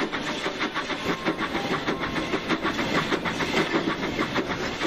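Steam locomotive sound effect: puffing in a quick, even rhythm of short chuffs as the engine runs along.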